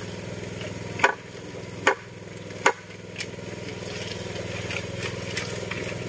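Three sharp impacts, a little under a second apart, over the steady low hum of an idling engine.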